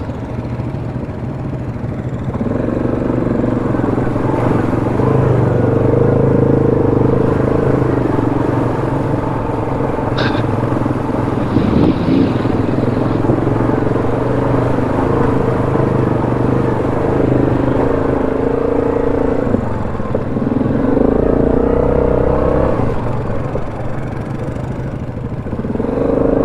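ATV engine running under throttle on the trail, getting louder about two and a half seconds in and easing off briefly twice later on.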